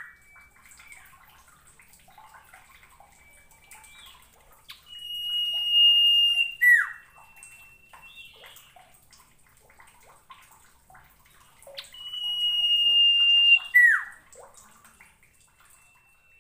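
Common iora (sirtu) singing: two long, steady, high whistles, each swelling for about two seconds and ending in a sharp downward slur, about seven seconds apart, with faint short notes and chips in between. The slurred end of an earlier whistle sounds right at the start.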